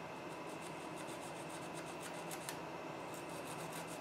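Faint scratching and rubbing as hands work on a small circuit board, a quick run of light scrapes, over a steady electrical hum.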